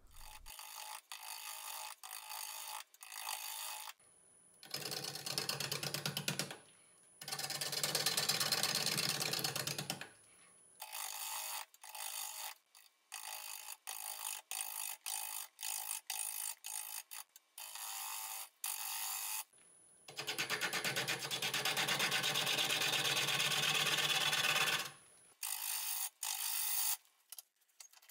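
Turning tool cutting a spinning, lopsided spalted ash bowl blank on a wood lathe. Short spells of cutting stop and start abruptly, with two longer, louder stretches of heavier cutting, one early and one in the second half.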